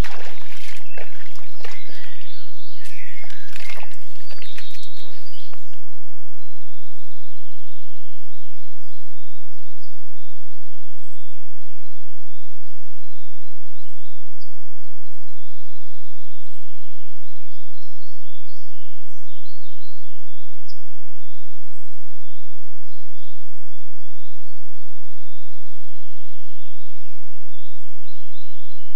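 Sharp clicks and rustles from an animal moving right at a trail camera for the first five seconds or so, stopping suddenly; then faint birdsong, scattered short chirps from the surrounding woodland.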